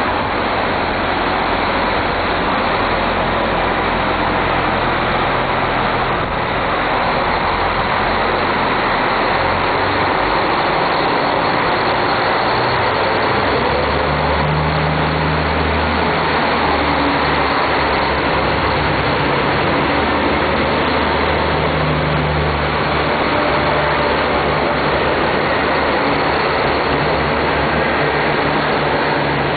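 KiHa 261 series diesel railcar engines running under power as the train pulls out of the station and its cars roll past close by. A steady low engine drone that swells about a third of the way in and stays strong through the middle.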